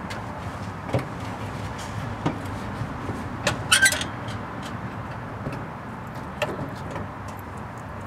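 Scattered clicks and knocks from a 1977 Chevy C10 pickup as its driver's door is opened and the three-on-the-tree column-shift linkage is moved into reverse, over a steady low hiss. The loudest is a quick pair of clacks with a short squeak a little before the middle.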